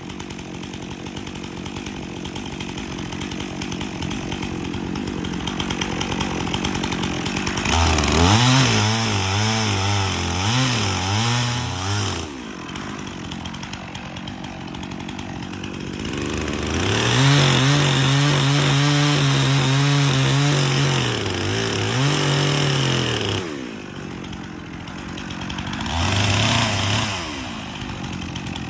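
Chainsaw idling, then revved up three times to cut into a silver maple trunk: a cut of about four seconds, a longer one of about six seconds, and a short rev near the end, dropping back to idle between them.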